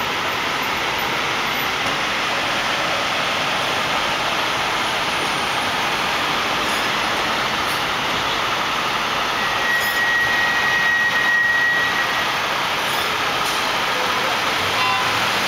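Steady city street traffic noise of engines and tyres. A brief high steady whine lasts about two seconds around two-thirds of the way through.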